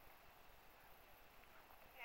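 Near silence: a faint steady background hiss.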